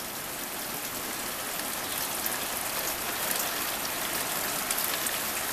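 Steady hiss of rushing floodwater pouring over a driveway and through a culvert, growing a little louder.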